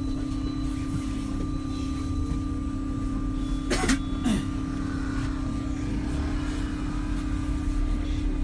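MAN Lion's City Hybrid diesel-electric city bus running with a steady low rumble and an even hum. Two short sharp noises come about four seconds in.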